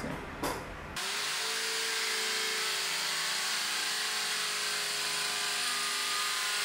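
Electric drill motor running at a steady speed, a high hiss with a steady whine in it, starting abruptly about a second in.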